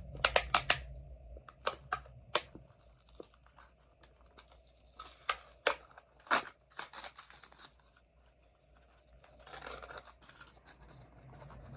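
Packaging of a diecast toy car being opened by hand: a run of sharp clicks and snaps, with short stretches of tearing and rustling about five seconds in and again near the end.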